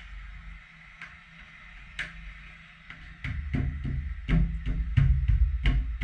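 Background music with a heavy drum beat that comes in about three seconds in, after a few seconds of faint hiss and an isolated click.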